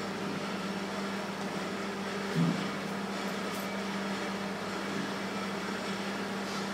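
Steady mechanical hum with a low, even tone from running equipment, and one short knock about two and a half seconds in.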